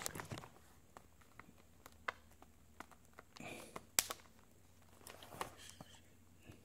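Quiet handling sounds from hands pressing the iPad's new glass digitizer panel down onto its frame: scattered sharp clicks and taps, the loudest at the very start and about four seconds in, with two short rustles as the tablet is shifted and lifted.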